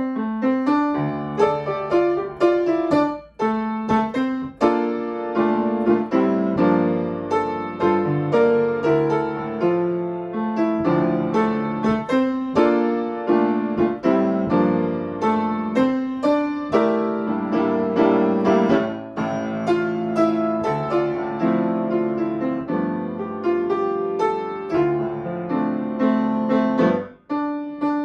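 Grand piano played solo: a flowing piece of chords and melody, with short breaks between phrases about three seconds in and near the end.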